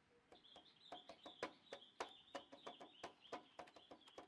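Faint outdoor animal sounds: an irregular run of short, sharp clicking notes, about five or six a second, over a faint high steady trill.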